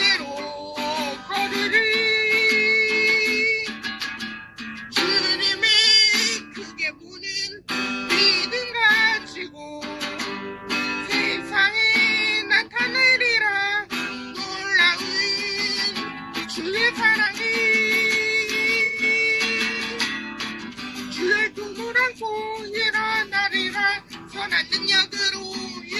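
A woman singing a Korean praise song over strummed acoustic guitar accompaniment, holding several long notes with vibrato.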